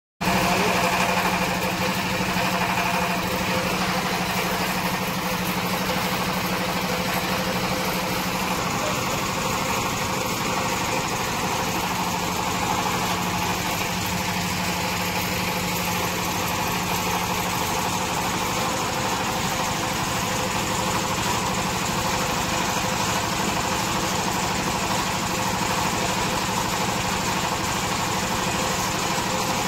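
Cement brick-making machine with its pan mixer running: a steady, unbroken mechanical drone.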